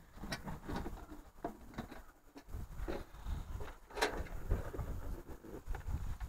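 Irregular clicks, knocks and scrapes from handling a street-light fixture's hinged cover as it is swung open, the loudest knock about four seconds in, over a low rumble.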